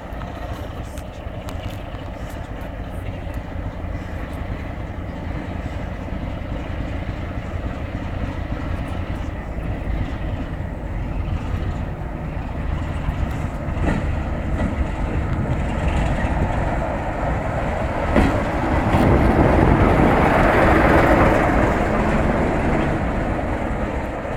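Class 33 diesel-electric locomotive's Sulzer eight-cylinder engine running as the locomotive approaches and draws into the platform, growing steadily louder and loudest about twenty seconds in as it comes past. A single sharp knock about eighteen seconds in.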